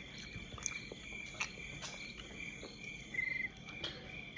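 Crickets chirping: short high chirps repeating about twice a second, with one quicker trilled chirp near the end. A few faint clicks sound among them.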